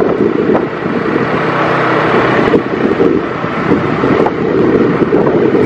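Wind buffeting the microphone over the steady running of the vehicle it is mounted on as it drives along a street.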